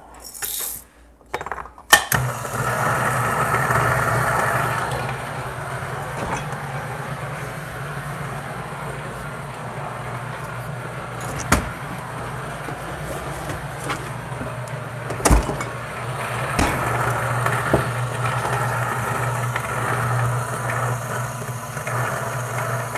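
Niche Zero conical burr coffee grinder grinding a dose of espresso beans. It makes a steady motor hum with a grinding rasp, starting abruptly about two seconds in, with a few sharp clicks along the way.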